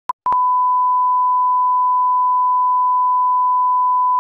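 A 1 kHz reference tone, the test tone that goes with TV colour bars. A short blip comes first, then the tone holds one steady pitch.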